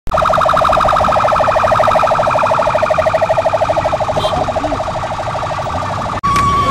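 Vehicle siren sounding a fast pulsing warble, loud and steady, that cuts off abruptly near the end.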